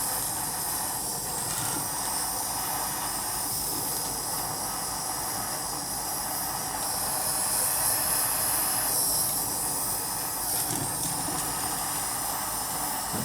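Small soldering torch flame hissing steadily while it heats a bezel seam so the solder flows up the joint.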